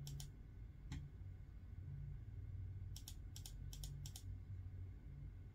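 Faint computer mouse button clicks over a low steady hum: a couple at the start, one about a second in, then a quick run of paired clicks between three and four seconds in.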